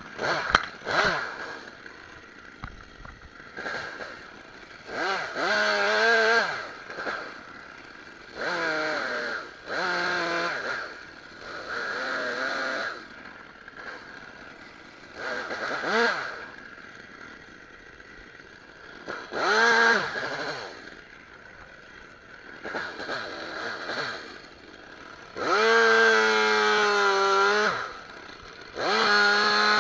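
Stihl chainsaw revving up in repeated bursts of one to three seconds and dropping back to idle between them, as it cuts brush. Two longer runs come near the end.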